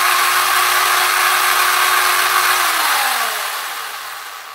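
Wltoys 12428 RC buggy's 540 brushed electric motor and 4WD drivetrain run at full throttle with the wheels spinning in the air, a loud steady whine. About two and a half seconds in, the throttle is let off and the whine falls in pitch and fades as the wheels coast down.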